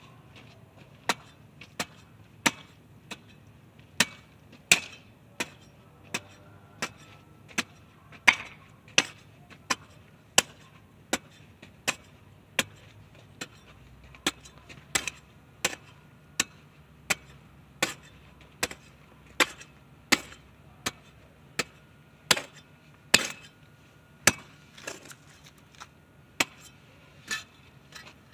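Steel garden hoe blade chopping into hard, lumpy soil, breaking up the clods: sharp strikes about three every two seconds, some louder than others.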